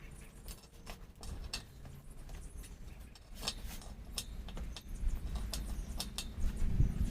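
Scattered light clicks and taps from hand work on a motorcycle's front wheel during a tyre change, irregular and a few a second, over a low rumble.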